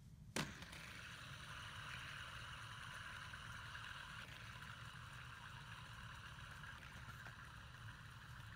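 A metal fidget spinner flicked with a sharp click about half a second in, then whirring steadily on its ball bearing as it spins flat on a board.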